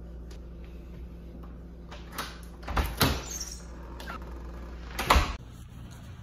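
An apartment front door being unlatched and swung open with a few knocks and clatter, then shut with a louder thud about five seconds in, over a steady low hum.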